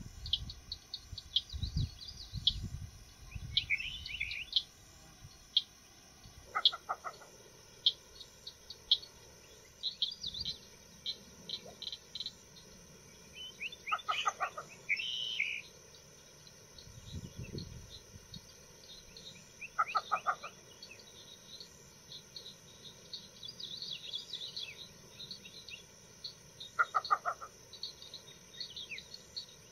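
Least bitterns calling quietly: four short, rapid series of notes, one about every six or seven seconds, over higher chirps from other small birds and a steady insect buzz. A few low thumps come early on and again about two-thirds of the way through.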